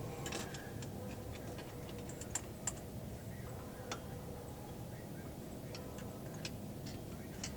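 Irregular small metallic clicks and taps from a wrench tightening a spark plug into an old Honda ATV engine, a few sharper clicks a couple of seconds in.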